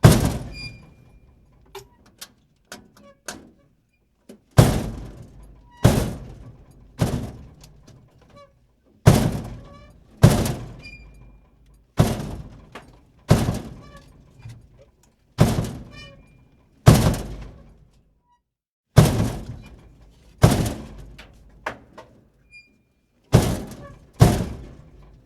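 Metal door slammed shut again and again, more than a dozen heavy bangs at irregular gaps of one to two seconds, each ringing out briefly; a few light clicks come between the first bangs.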